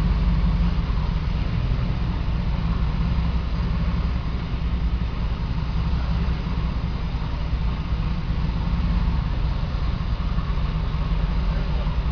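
Steady low rumble of a vehicle's engine.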